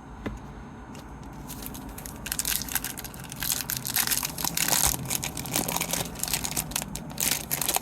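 Foil wrapper of a hockey card pack crinkling and tearing as it is opened, a dense crackle that builds over the first couple of seconds and keeps up to near the end.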